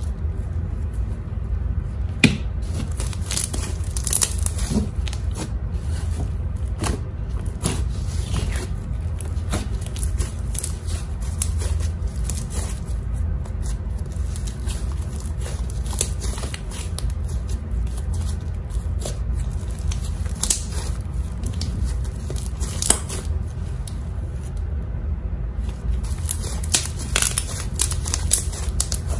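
Blue-green glitter slime being stretched, squeezed and pulled apart by hand, giving irregular sticky crackling and tearing sounds, over a steady low hum.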